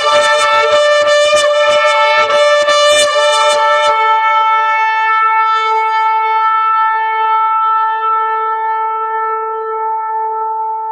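Shofar (ram's horn) sounding one long blast: rough and pulsing for the first few seconds, then a steady held note that slowly grows softer.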